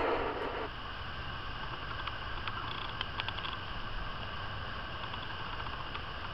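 Steady outdoor background hiss with a few faint clicks, after a louder noisy sound cuts off within the first second.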